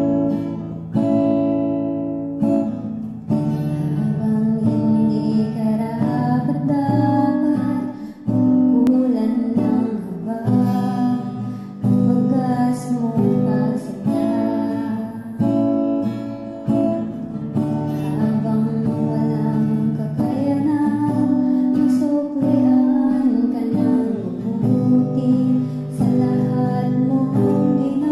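Acoustic guitar strummed and picked in slow chords, with a woman singing a worship song over it.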